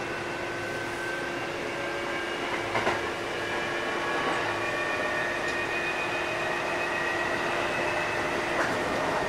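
Kintetsu 8000 series electric train running, heard from inside the car. A steady motor and gear whine sits over the rumble of the wheels, the whine edging up in pitch in the second half, with a couple of short wheel clacks over rail joints, about three seconds in and again near the end.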